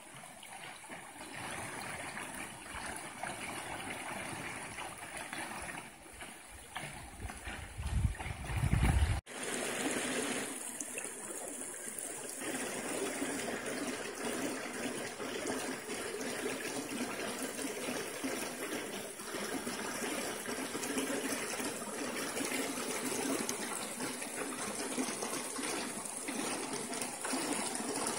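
Creek water running steadily over a low concrete sill and shallow gravel riffles. A brief low rumble, the loudest moment, comes about eight seconds in; a second later the sound changes abruptly to a fuller, steady rushing.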